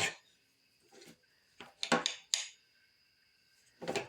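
Metal clanks and clicks from the gear-shift lever and gears of an antique cast-iron floor drill press being shifted: a handful of sharp knocks spread across a few seconds, over a faint steady high whine.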